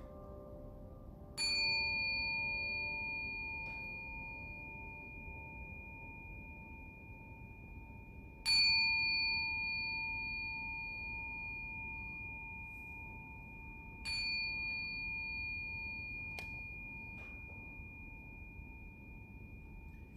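A metal chime struck three times, about six seconds apart, each stroke ringing in one clear high tone that slowly fades.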